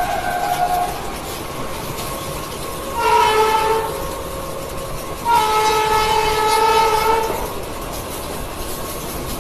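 Indian Railways passenger train rolling out of a station, heard from an open coach door, with a train horn sounding over the running noise: a short blast about three seconds in and a longer blast of about two seconds about five seconds in. An earlier horn note dies away within the first second.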